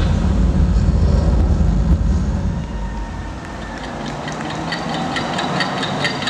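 Mechanical sound effects from a projection-mapping show's soundtrack: a deep machine rumble, then a rising rush with quick, regular ticking, about four ticks a second, like turning machinery or a train, near the end.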